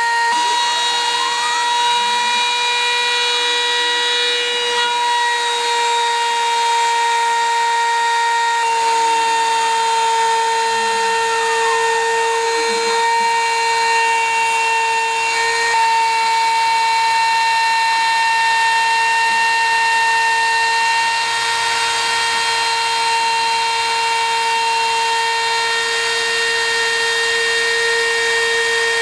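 Porter-Cable router motor on a CNC router, spinning with a steady high-pitched whine while its bit cuts an engraved groove into a wooden board. The pitch shifts slightly twice as the cut goes on, and faint rising and falling tones sound under the whine.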